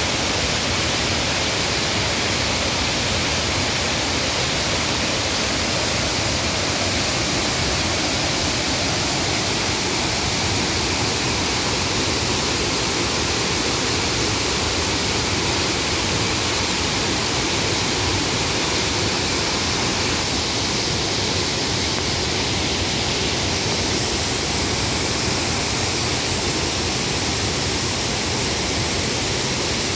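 Mountain river swollen by heavy rain, pouring over a waterfall: a steady, loud rush of white water.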